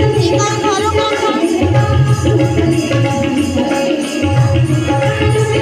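Bhajan accompaniment: an electronic keyboard with tabla-style drumming over a bass figure that repeats about every two and a half seconds.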